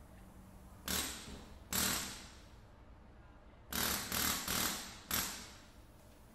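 Die-cast toy cars and the playset's plastic car lift clacking as a hand moves them: two sharp clacks a little under a second apart about a second in, then a quicker run of four more near the middle.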